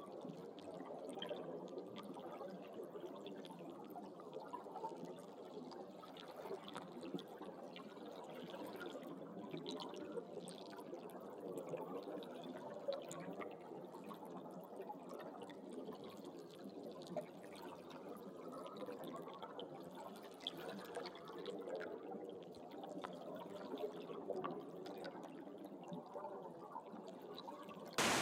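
Running water gurgling and trickling, a soft, steady burble with small drips and splashes. Near the end it gives way abruptly to a much louder, even rush of water.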